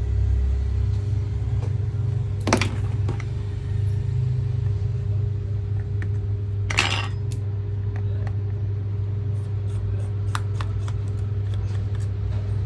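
Small clicks and taps of tools and plastic parts being handled during disassembly of a handheld point-of-sale terminal, with two louder clattering clicks, one a couple of seconds in and one about halfway. A steady low hum runs underneath.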